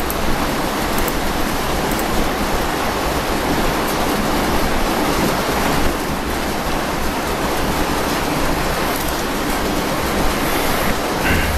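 Steady, even rushing noise, as loud as the narration around it, with no distinct events.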